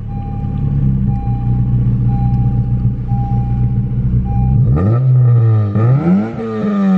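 9th-generation Honda Civic Si's K24 four-cylinder idling, heard from inside the cabin, with a warning chime beeping about once a second. A little under five seconds in, the engine is revved twice, the second time to about 4,000 rpm. The revs rise and fall slowly, which the owner puts down to flywheel weight.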